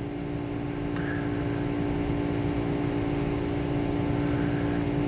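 Steady background hum of a running machine: a low drone with a few constant tones, unchanging throughout.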